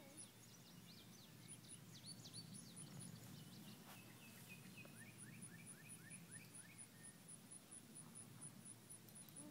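Near silence: faint outdoor ambience with scattered bird chirps, a run of quick repeated chirps about halfway through, and a faint regular high-pitched ticking.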